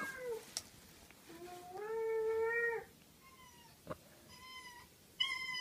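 Domestic cat meowing over and over: a long, low, drawn-out meow about two seconds in, then shorter, higher meows toward the end. Two brief clicks fall between the calls.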